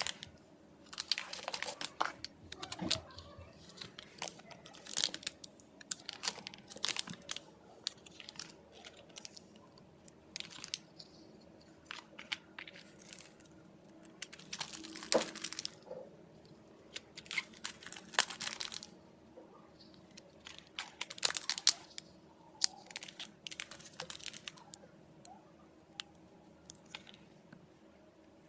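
Glitter slime being squeezed and stretched by hand: irregular short bursts of crackling, with pauses between them.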